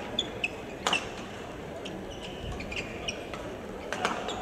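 Badminton rally: sharp racket hits on the shuttlecock, three within the first second and another near the end, with short squeaks of players' shoes on the court floor between them.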